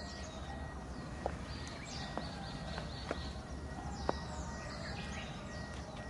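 Outdoor background noise with birds chirping, their short calls sweeping down in pitch, and a handful of sharp clicks scattered through it.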